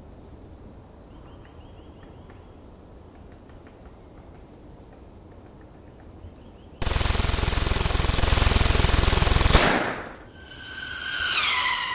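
Quiet outdoor ambience with a few faint high bird chirps. About seven seconds in, a loud burst of rapid automatic gunfire starts abruptly and lasts nearly three seconds. It is followed by a pitched electronic tone that slides down.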